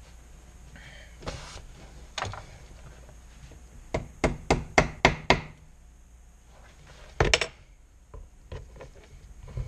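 Tools knocking and clattering on a workbench: a quick run of about six sharp knocks in under a second and a half, then a shorter clatter a couple of seconds later, with a few lighter knocks around them.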